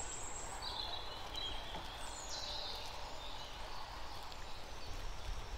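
Quiet open-air background noise with a few faint bird calls, one a short falling whistle about two seconds in.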